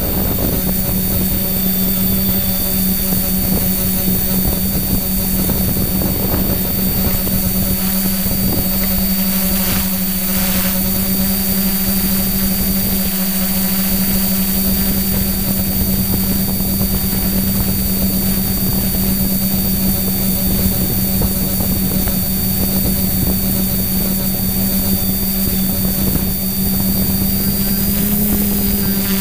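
A carbon-fibre quadcopter's electric motors and carbon-fibre propellers droning steadily in flight, heard close up from the GoPro on board, with wind from the props. The pitch lifts slightly near the end.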